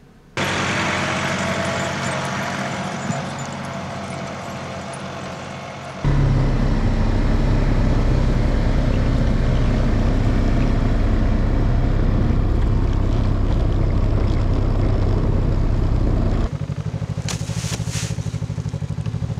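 Snow machine (snowmobile) engine running, heard across several cuts. It comes in suddenly and fades over the first few seconds, then runs louder and steady from about six seconds in, and settles to a quieter steady idle near the end. A few sharp clicks come near the end.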